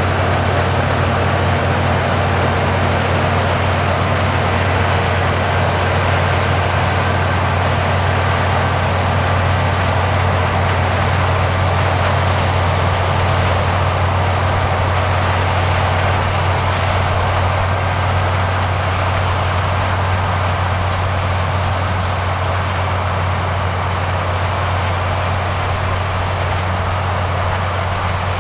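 International Harvester 1460 Axial-Flow combine running steadily while harvesting corn: a loud, even drone of the engine and threshing machinery, with no pauses or changes.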